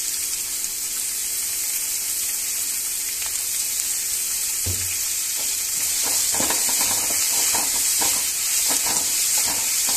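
Chopped onion, dried red chillies and curry leaves sizzling in hot oil in an aluminium kadai, a steady hiss as the onions fry towards golden. From about halfway, a wooden spatula stirring them, knocking and scraping against the pan.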